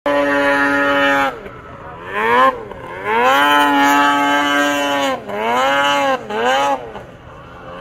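Snowmobile engine revving hard on a hill climb, its pitch held high under full throttle, dropping as the throttle is let off and gliding back up on each new burst: a long pull in the middle, with shorter blips around it.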